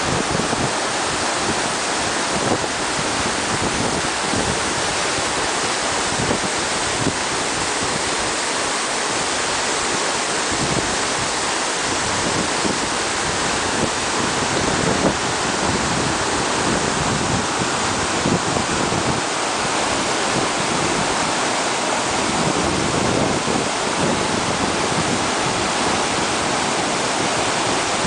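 Glacial meltwater torrent of the young Aare rushing and churning over rocks: steady, loud white-water noise.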